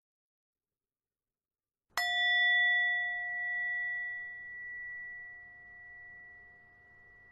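A meditation bell struck once about two seconds in, then ringing on in a clear, fading tone with a slow wavering pulse, marking the end of the meditation.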